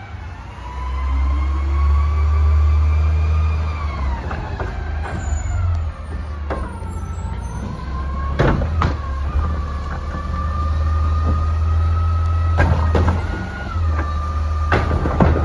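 Front-loader garbage truck's diesel engine running with a hydraulic whine that rises and falls and then holds steady, as its Curotto-Can automated arm grabs a cart and lifts it. Sharp metallic clanks come twice about halfway and several more times near the end.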